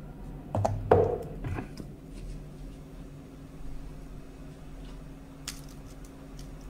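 Quiet room tone with a steady low hum, a brief voice-like sound about a second in, and a few faint clicks and handling noises, with one sharper click a little after five seconds.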